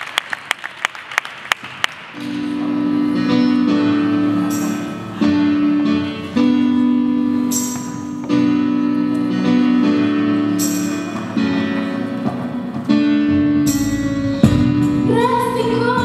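Audience clapping dies away in the first two seconds, then an instrumental accompaniment begins: held low chords that change every second or so, with a bright hit about every three seconds. Near the end a girl starts singing into a microphone over it.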